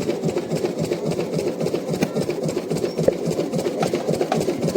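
An engine running steadily with a fast, even clatter of about seven beats a second.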